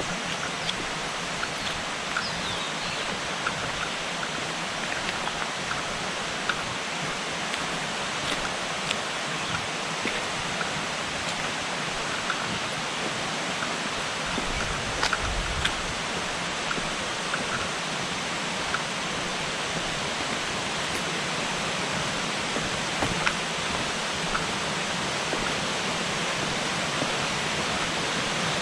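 Steady rush of flowing water, growing a little louder near the end.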